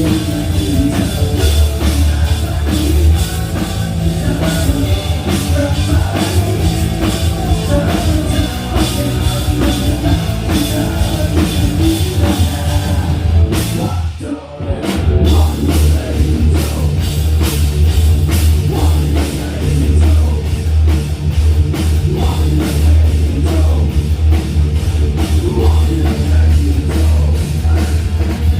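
Heavy rock band playing live at a sound check: loud drum kit and heavy bass, with a brief break about halfway through.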